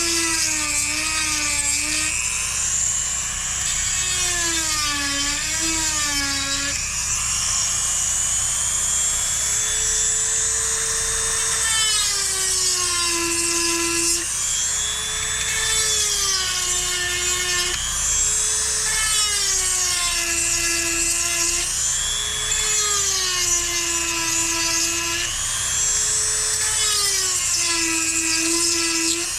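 Dremel rotary tool sharpening a chainsaw chain, tooth by tooth. Its high motor whine sags in pitch and recovers again every two to three seconds as it bears on each tooth.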